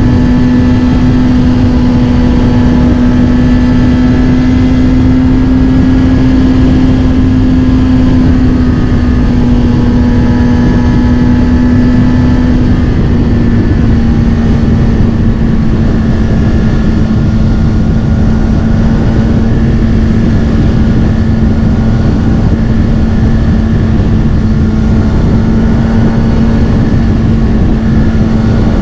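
Kawasaki Ninja ZX-6R inline-four through a Scorpion titanium exhaust, held at a steady engine speed while cruising. Its note eases down slightly about halfway through, over a constant rushing noise.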